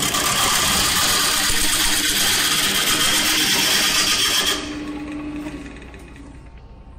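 A gouge cutting a spinning, still-moist olive root blank on a wood lathe: a loud, steady hiss of shavings tearing off. About four and a half seconds in the cut stops, leaving only the lathe's quieter running, which fades as the lathe winds down.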